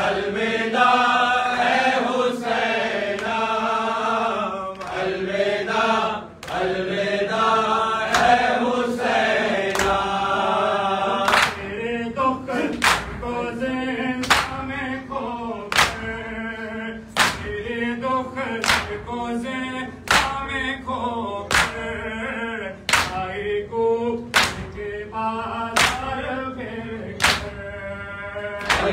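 Men chanting a Farsi noha in chorus while beating their chests with both hands in time to it. The flat-handed slaps on bare chests come through as sharp claps in a steady beat, standing out most in the second half.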